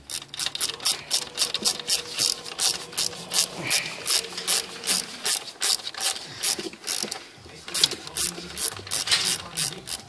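Hand ratchet with a socket on an extension clicking in quick back-and-forth strokes as it loosens a bolt, with a short pause about seven seconds in.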